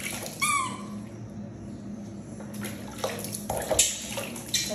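Water splashing as it is scooped by hand from a plastic basin during a bath, in uneven splashes that grow stronger about three seconds in. A short, high squeak comes about half a second in.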